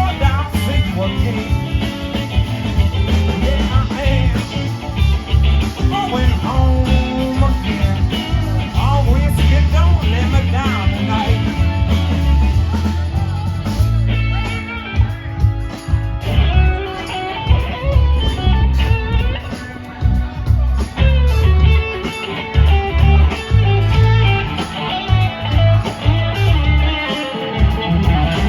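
Live blues-rock band playing an instrumental break, guitar to the fore over bass and drums.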